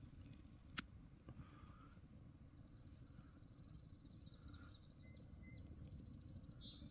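Faint songbird trills over a low outdoor background: a dry, even trill of about two and a half seconds, then a couple of short high notes and a fast, higher trill near the end. A single sharp click comes about a second in.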